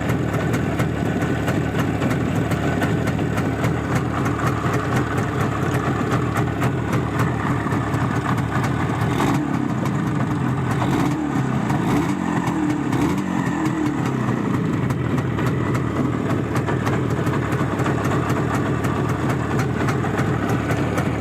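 IZh Jupiter 5 twin-cylinder two-stroke motorcycle engine running steadily, revved up in the middle and then settling back. It still has the ring from the cylinders that the owner puts down to the pistons' faulty geometry.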